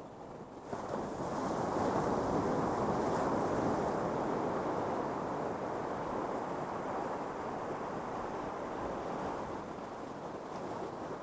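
Ocean surf on a beach: a wave breaks about a second in, and its rushing wash runs on, slowly fading.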